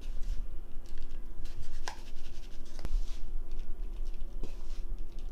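Dry rice-dough noodle strands rustling and scratching against a plastic colander as they are stirred and shaken by hand, sifting off the loose rice flour, with a few sharp clicks along the way.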